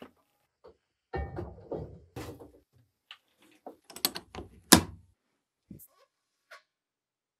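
A cast iron skillet is set inside a metal sandblasting cabinet and the cabinet's door is swung shut, making a run of knocks and clatter. Then the door's metal latch snaps closed with one sharp, loud click a little under five seconds in.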